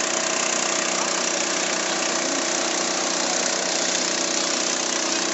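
An engine running steadily at a constant speed, with an even hiss over it.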